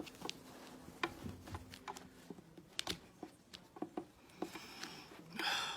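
Scattered light clicks and rustles from hands and scissors working inside a cut-open plush dog toy, with a louder rustle just before the end.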